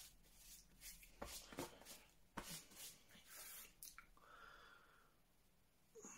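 Near silence: room tone with a few faint clicks and rustles.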